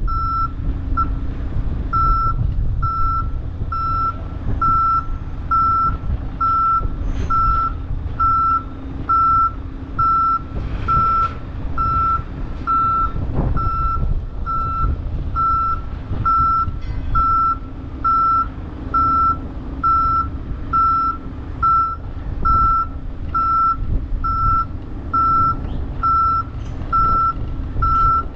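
Backup alarm beeping at a steady, even pace over a diesel engine running: heavy equipment moving in reverse.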